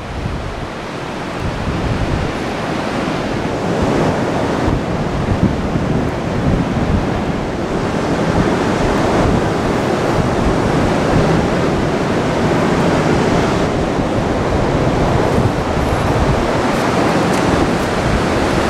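Ocean surf washing onto a sandy beach in a steady rush of noise, with wind gusting across the microphone.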